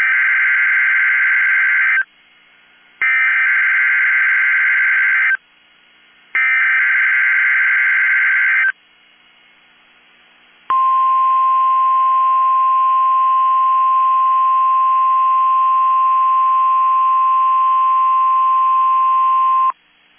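NOAA Weather Radio EAS/SAME header: three bursts of digital data tones, about two seconds each with a second's gap between them. Then the 1050 Hz weather radio warning alarm tone, one steady high tone held for about nine seconds before it cuts off. It opens a broadcast test of the warning alarm.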